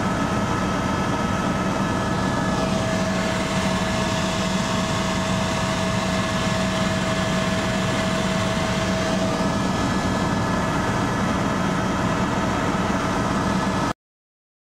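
Steady cabin noise inside a flying helicopter, the engine and rotors running at a constant pitch with a few held tones over a broad rush. It cuts off abruptly near the end.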